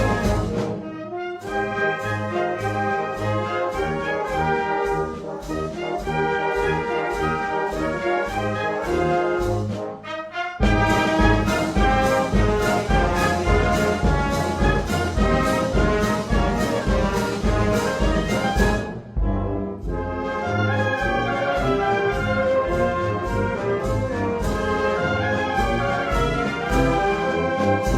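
Brass band music: trumpets and trombones playing over a steady bass-drum beat, with short breaks about a second in, near ten seconds and near nineteen seconds.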